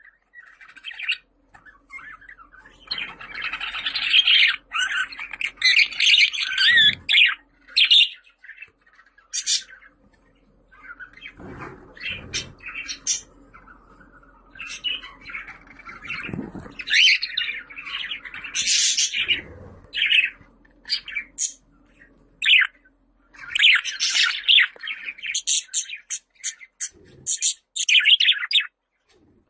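Budgerigar warbling and chattering in bursts, with sharp chirps and squawks between them and short pauses now and then. A few dull low knocks come in among them.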